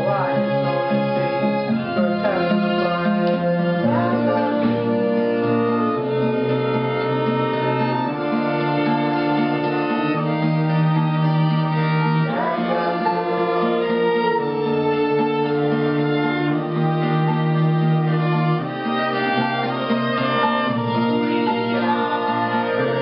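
Small acoustic band playing a song live, led by bowed strings: violin with cello below, holding long notes over a bass line that moves every second or two.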